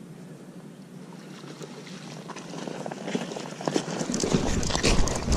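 Footsteps crunching on a gravel riverbank, starting about halfway in and growing louder, with a low rumble of wind or handling on the microphone near the end.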